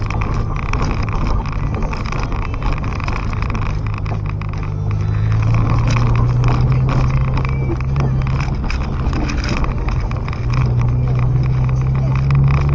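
Car engine and tyres on a rough dirt road, heard inside the car: a steady engine drone that rises in pitch and loudness about five seconds in and again near ten seconds, over constant rumble and rattle from the unpaved surface.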